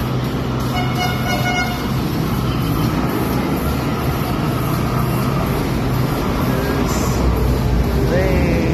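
Light-rail trains running at a station platform, a steady rumble throughout, with a short horn toot about a second in.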